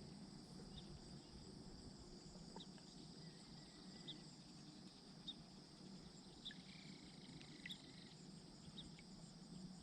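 Faint, steady trilling of insects, with scattered short high chirps every second or so.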